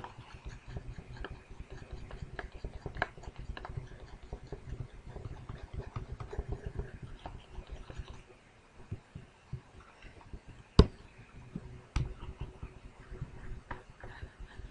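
Quick, rhythmic soft thumps and scratches of a stylus hatching strokes on a drawing tablet. They ease off for a couple of seconds past the middle, and sharp clicks come at the start and twice near the end.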